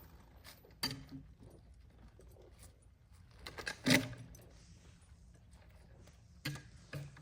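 A few scattered metallic clinks and knocks, the loudest just before four seconds in and two more near the end, over a quiet background.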